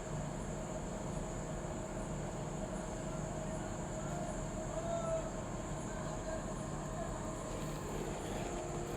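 Diesel engine of an XCMG 500-tonne truck crane running steadily, with a constant whine over a low hum.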